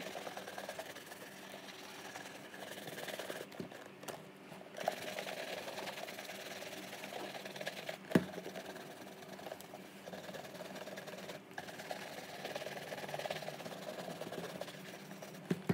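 Shoe brush bristles stroking back and forth over leather boots in a rough, repeated rhythm, the final brushing after polishing. One sharp knock comes about eight seconds in.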